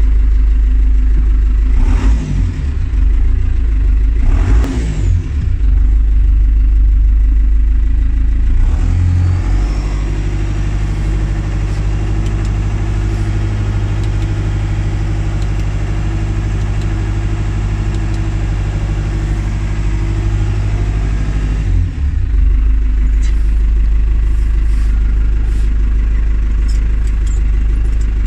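New Holland TN95 FA tractor's diesel engine running from the cab. About nine seconds in it is revved up to about 1500 rpm and held steady, then drops back to idle about 22 seconds in. A few short knocks and rattles come in the first few seconds.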